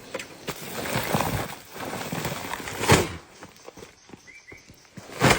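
Bricks being handled and stacked onto a motorcycle's load: scuffs and hard knocks of brick on brick, the loudest about three seconds in and another near the end.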